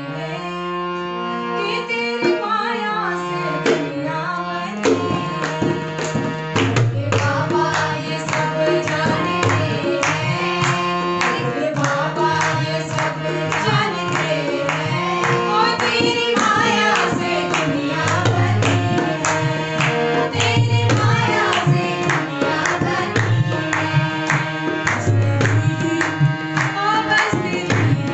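A Hindu devotional bhajan sung by a woman to her own harmonium, with a dholak drum keeping a steady beat and the group clapping along. The drum strokes come in a few seconds in.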